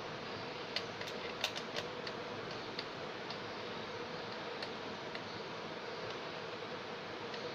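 Light, sharp clicks and taps of small hard parts being handled, a quick cluster of them about a second in and then scattered single ticks, over a steady hiss with a faint low hum.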